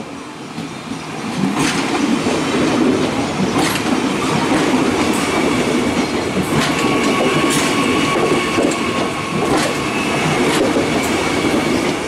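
Soekarno–Hatta Airport Railink electric train passing close by: the rumble of the carriages builds over the first second or so, then runs loud and steady with scattered clicks of wheels over the rail joints. From about halfway a thin, steady high whine joins in.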